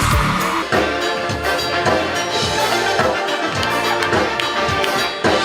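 Music with brass and drums over a steady beat.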